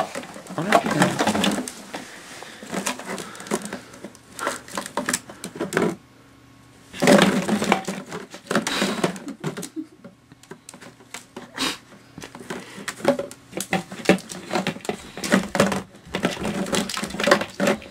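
Empty plastic water bottles crinkling and clattering against each other in a tub as a ferret digs and burrows through them. Irregular bursts of crackling, with a short lull about six seconds in followed by a loud flurry.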